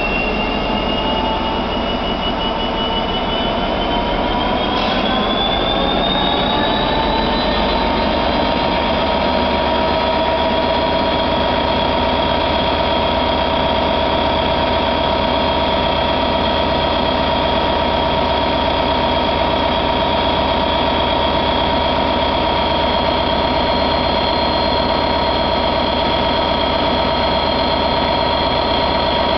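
Class 66 diesel locomotive 66520's EMD two-stroke V12 engine running loudly, its pitch and a high whine rising over the first eight seconds or so as it revs up, then holding steady.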